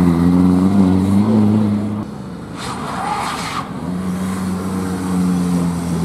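Seat Ibiza rally cars at speed. The first car's engine revs rising until it breaks off sharply about two seconds in. A short hiss of noise follows, then a second car's engine comes in at steady high revs as it passes.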